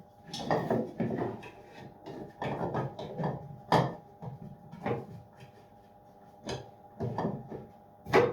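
Hollow 3D-printed plastic parts knocking and scraping as they are handled and fitted together, a string of irregular clatters.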